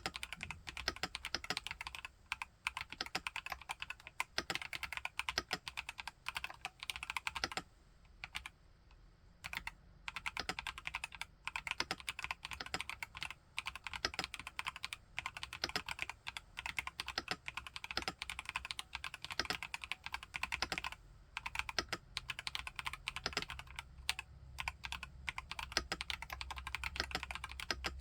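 Continuous typing on an IQUNIX Q66 mechanical keyboard with TTC Holy Panda tactile switches, a fast stream of key presses that stops for about two seconds roughly eight seconds in, then resumes.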